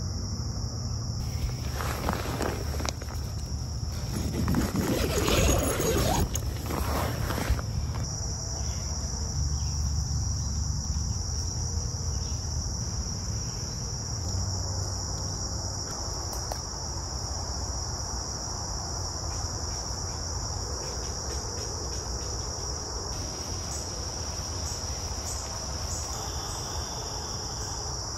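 A steady, high-pitched insect chorus that keeps going without a break. Louder rustling and handling noises sit over it for the first several seconds and stop about eight seconds in.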